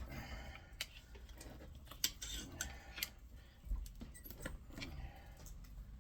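Scattered metal clinks and taps, a few sharp ones with brief ringing, from a tool prying and tapping at a speed reducer motor to work its stuck armature loose.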